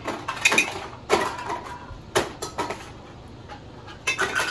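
Items being handled and set down in a plastic bin: a string of irregular clattering knocks and clicks, with a quick cluster near the end.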